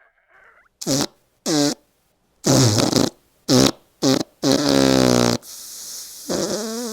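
A quick series of fart sounds: about six blasts of varying length, the last and longest a buzzing one of about a second, followed by a low steady hiss.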